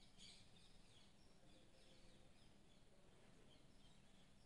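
Near silence: faint background hum and hiss with a few faint, short high chirps.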